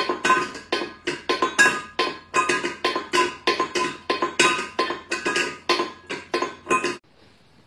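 A cat's bowl being knocked against a tiled floor again and again, about three clinks a second, each with a short ringing tone. The knocking stops suddenly about seven seconds in.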